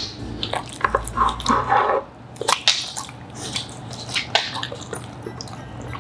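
A boxer dog chewing and licking its lips: irregular wet smacks and clicks throughout.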